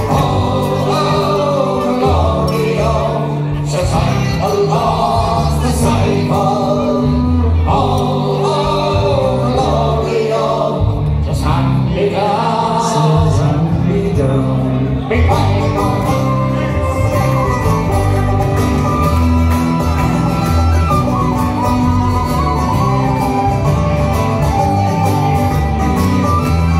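Live folk band with acoustic guitar, banjo and double bass, male voices singing the melody. About halfway through the singing stops and a whistle takes up the tune over the strummed accompaniment.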